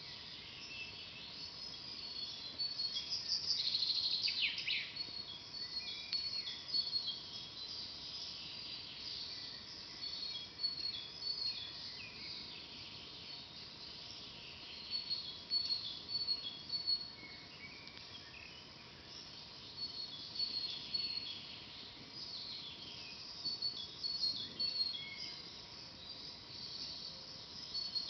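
Songbirds chirping and singing, many short high notes overlapping, with a louder rapid trill about three to five seconds in.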